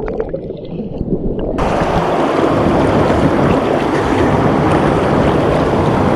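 Steady rush of water from a small waterfall, heard muffled for about the first second and a half, then suddenly clear and full.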